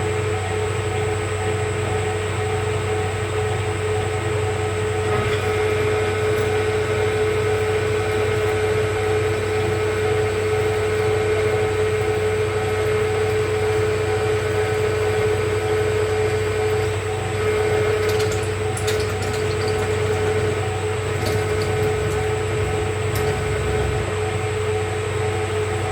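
Metal lathe running steadily while machining a steel bushing, a constant motor and spindle hum with a few light ticks about three quarters of the way in.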